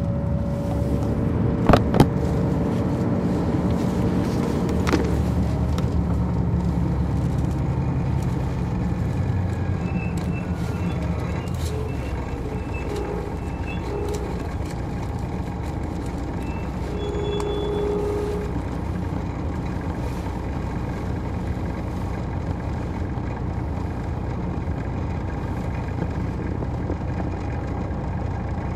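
2002 MCI D4000 coach's Detroit Diesel Series 60 engine running steadily, with two sharp clicks about two seconds in.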